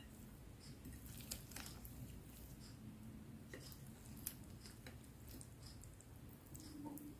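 Faint wet squishing of rice and crab stick salad being stirred into mayonnaise with two plastic spoons, with occasional light clicks of the spoons against the plate.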